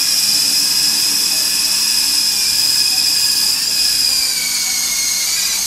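Electric motors and rotors of a 3-channel Volitation toy RC helicopter in flight, giving a steady high whine, its pitch sinking a little near the end.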